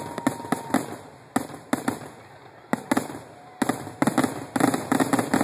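Aerial firework shells bursting in a rapid barrage, single sharp bangs at first and then a dense crackling run of reports in the last couple of seconds, the loudest part. A faint short whistle sounds about three seconds in.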